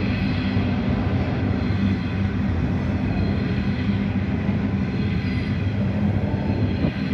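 Freight train of coal hopper wagons rolling past at steady speed: a continuous rumble of wheels on the rails with a steady low hum underneath.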